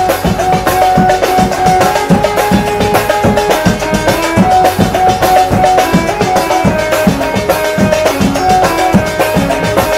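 Patrol music ensemble of many drums playing a fast, steady beat, with a melody of held notes over it.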